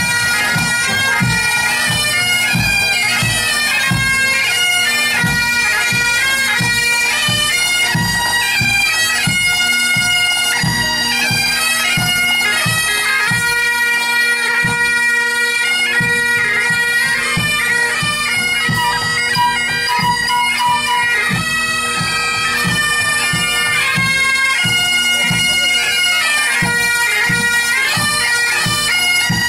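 A pipe band of Great Highland bagpipes playing a march tune over their steady drones, with drums keeping an even beat.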